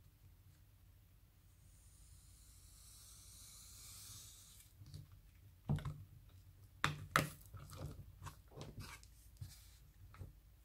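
Kinetic sand being worked by hand and with tools: a soft hiss of the sand for a few seconds, then several sharp taps and clicks with smaller ticks after.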